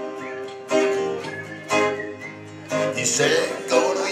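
Acoustic guitar strummed live: a chord is struck about once a second and left ringing between strokes.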